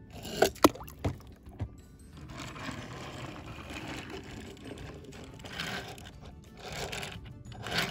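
Toy cars rolled across a plywood board, wheels rattling steadily on the wood, with a few sharp knocks and splashes as a car drops off the edge into a tub of water, once about half a second in and again near the end.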